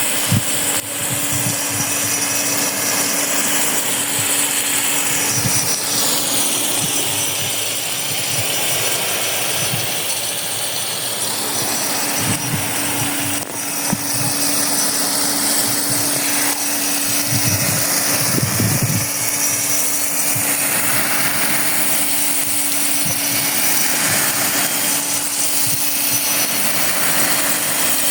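Rain gun irrigation sprinkler throwing its water jet: a continuous loud hiss of spray that swells and fades as the jet sweeps round, with a faint steady hum beneath it.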